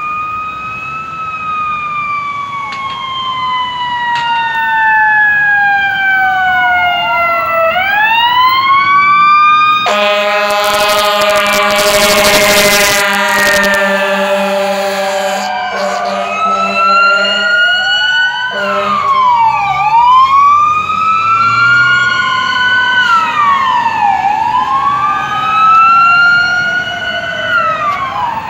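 Emergency vehicle siren wailing in slow rising and falling sweeps. About ten seconds in, a loud steady horn blast sounds over it for about eight seconds, and then the sweeping wail goes on.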